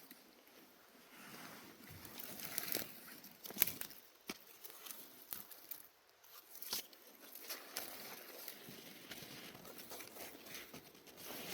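Rustling and crackling of forest-floor litter and twigs being disturbed, with a few sharp snaps, the loudest about three and a half seconds in.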